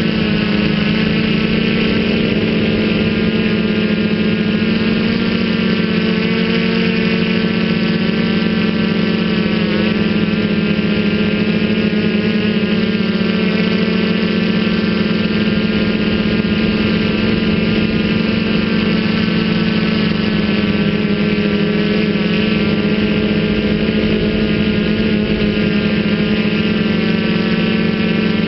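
Feiyu Tech Y6 Scorpion multirotor's six motors and propellers humming steadily in flight, heard close from the onboard camera, the pitch wavering slightly as the throttle shifts.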